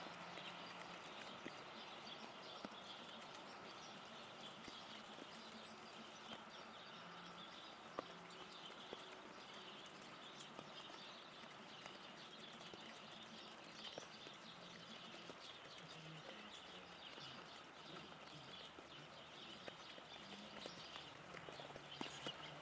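Faint steady patter of rain dripping through foliage, with a few sharp knocks as a Steller's jay pecks at corn in a wire basket feeder.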